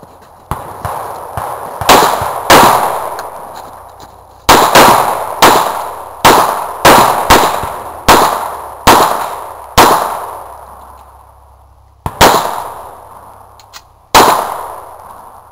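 Semi-automatic rifle fired over and over at a fast, uneven pace, about fourteen shots, several coming barely half a second apart. Each shot has an echo that rings out. The last two shots come after a short pause.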